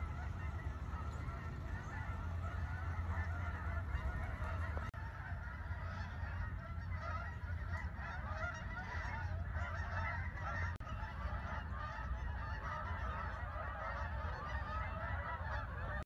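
A flock of birds calling continuously, many honking calls overlapping, over a low steady hum.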